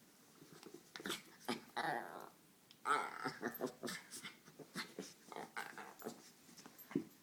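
An adult dog and a puppy play-fighting, with bursts of short growls and snarls, the loudest about three seconds in, among quick clicking noises.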